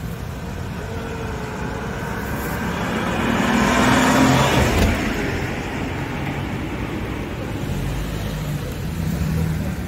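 Ferrari 550 Maranello's V12 engine as the car drives past: it grows louder, is loudest about four seconds in, then falls away quickly. Lower traffic noise runs underneath.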